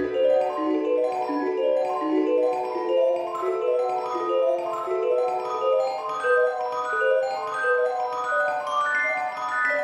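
Background music: a quick, bright melody of mallet-percussion notes, like a marimba or glockenspiel, climbing higher toward the end.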